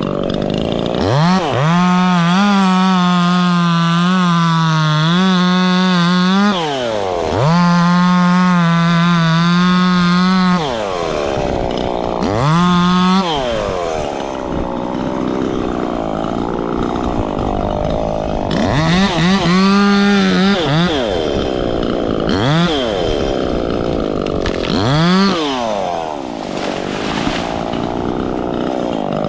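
Two-stroke chainsaw revved to full throttle and held there twice, for about five seconds and then about three, dropping back between. After that it runs at low speed, with a few short blips of throttle.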